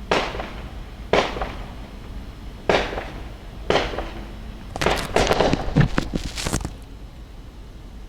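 Fireworks going off: four separate sharp bangs about a second apart, each trailing off briefly, then a quick run of crackling bangs lasting about two seconds.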